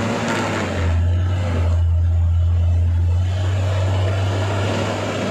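A loaded tanker truck's diesel engine labouring under heavy load while its rear wheels spin in deep mud. It is a steady low drone that swells louder for a couple of seconds about a second in, then settles back.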